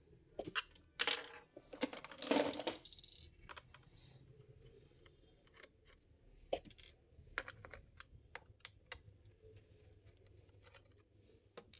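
Small screwdriver clicking and scraping on the bottom-case screws of a laptop as they are undone, with small metal screws and the tool clinking against the hard worktop; the clatter is busiest about one to three seconds in, then thins to scattered ticks.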